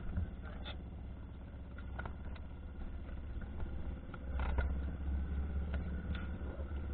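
Boat engine running steadily, a low hum that grows louder a little past four seconds in, with scattered small knocks and rustles close by.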